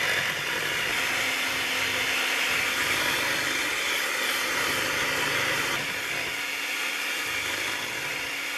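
Hamilton Beach electric hand mixer running steadily, its twin beaters whisking a thin egg, milk and flour batter in a bowl. It gets a little quieter in the last few seconds.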